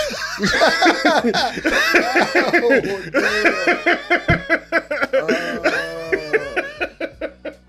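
Loud, hearty laughter that breaks into quick ha-ha pulses and fades out near the end.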